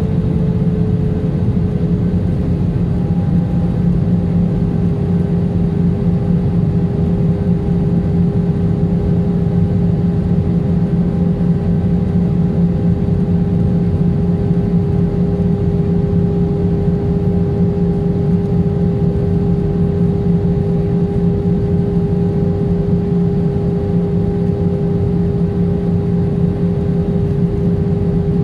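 Steady jet engine and airflow noise inside the cabin of an Airbus A320, heard from a seat over the wing. A steady hum settles slightly lower in pitch in the first couple of seconds, and a higher tone joins it about three seconds in.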